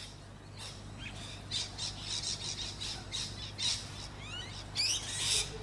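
Birds calling: a run of short, harsh high calls, then a few quick rising chirps near the end.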